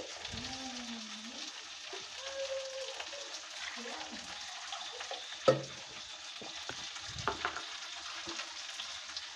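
Chicken sambar simmering in an aluminium pot on the stove, a steady hiss, with one sharp knock about five and a half seconds in.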